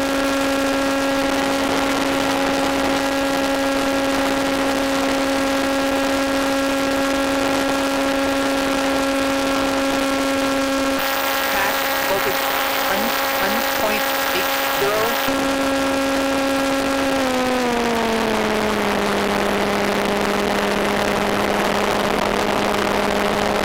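Electric motor and propeller of an EPP foam FPV plane running steadily at about 6,800 rpm, a steady whine over hiss. About three quarters of the way in the pitch glides down and settles lower as the motor slows to about 5,000 rpm.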